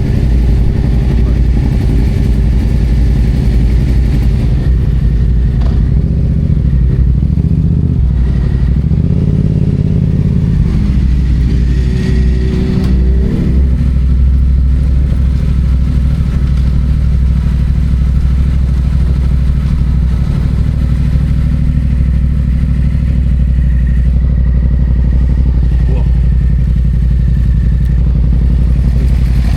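Yamaha FZ-07's 689 cc parallel-twin engine running steadily as the motorcycle is ridden, heard from the rider's position, with the engine note rising and falling briefly about ten to thirteen seconds in.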